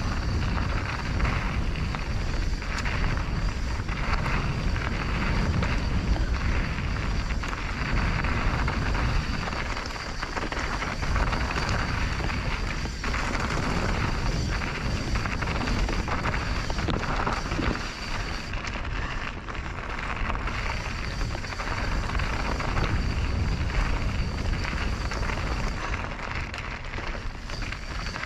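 A mountain bike running fast down a rough downhill trail, heard from an action camera on the ride: steady wind rumble on the microphone, with the tyres and bike rattling and knocking over rocky ground. A thin high whine runs underneath and twice drops out briefly.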